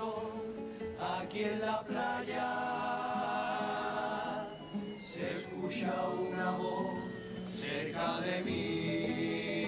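A junior chirigota chorus of young voices singing together in Cádiz carnival style, with long held notes.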